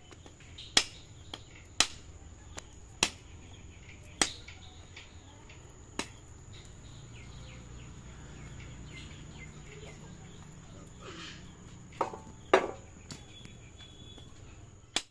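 Sharp knocks of a heavy curved knife striking a coconut shell to crack it open: five blows a second or so apart, a pause, then a few more near the end.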